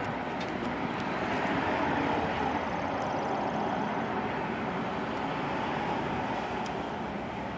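Steady vehicle noise: an engine running at an even pitch.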